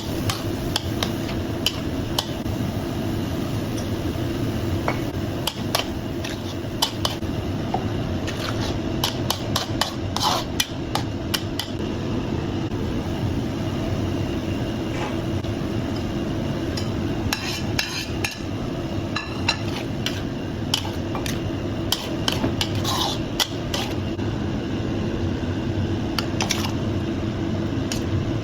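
Metal spatula stirring and scraping in a wok, with irregular clanks and knocks against the pan, over a steady background noise.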